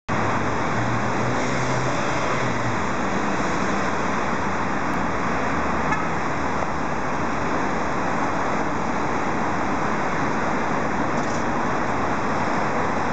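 Steady street traffic noise, with a vehicle's low engine hum in the first few seconds.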